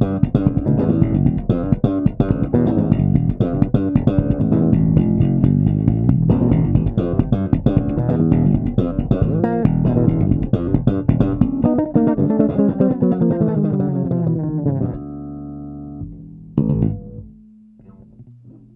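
Solo electric bass, a custom four-string neck-through ash-bodied bass with a Kent Armstrong MM pickup, played as a fast run of plucked notes. About fifteen seconds in it lands on a chord left to ring. One more short note sounds and dies away near the end.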